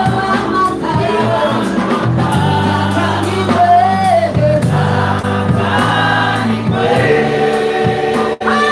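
Gospel praise-and-worship song: a woman lead singer sings through a microphone with a backing choir and musical accompaniment.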